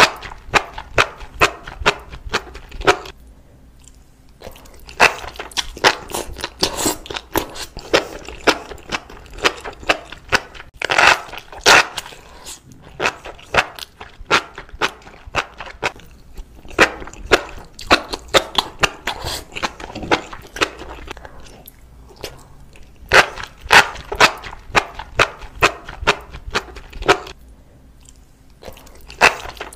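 Crisp crunches and clicks, several a second in irregular clusters, with short pauses about four seconds in and near the end.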